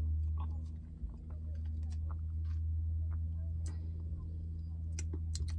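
Steady low hum of a car's idling engine heard inside the cabin, with a few small clicks and taps as an aluminium drink can is sipped from and handled.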